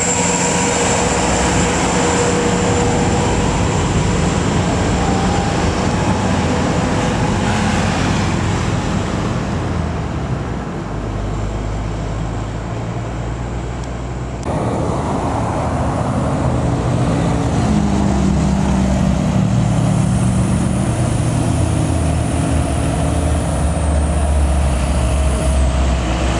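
Diesel engines of light cargo trucks, among them Isuzu Elfs, running as the trucks drive past on the road, over tyre and road noise. The sound changes abruptly about halfway through as other trucks come on.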